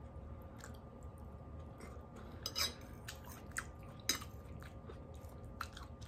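A person chewing food close to the microphone, with a few sharp clicks and taps scattered through.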